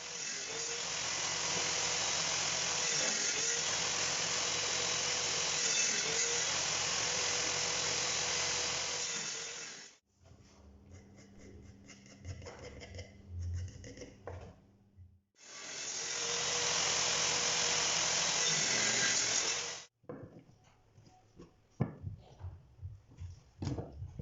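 A power tool working wood: a loud, steady noise with a wavering motor tone, in two stretches of about ten and four seconds. Between them and after them come quieter passages of a low hum and light wooden knocks and clicks.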